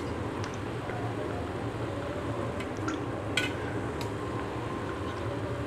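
Cooking oil trickling from a glass bottle into a steel spoon, with a few faint clicks, over a low steady hum.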